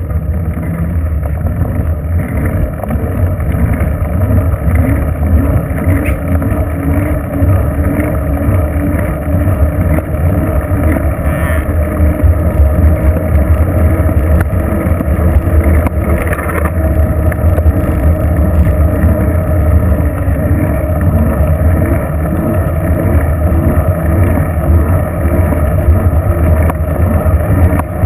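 Steady low rumble of wind buffeting the microphone and tyres rolling on pavement, picked up by a camera mounted on a moving bicycle.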